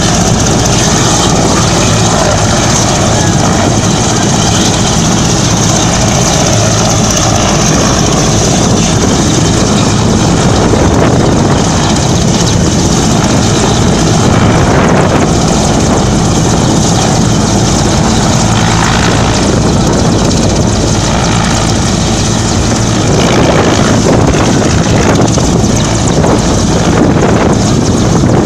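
Mexican Navy military helicopter's engines and main rotor running steadily while it stands on the ground, loud and close.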